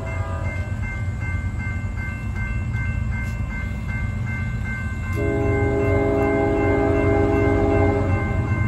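Approaching freight train's locomotive air horn sounding a long blast about five seconds in, a chord of several tones, over a steady low rumble. The grade-crossing warning bell rings steadily throughout.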